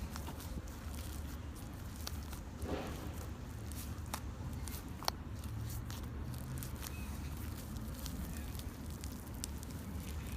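Slime being squished and pressed by hand, with scattered small clicks and crackles and a sharper click about five seconds in, over a low steady hum.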